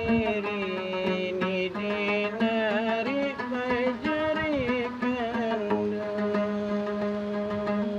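A man singing a wavering, ornamented folk melody while plucking a gambus lute.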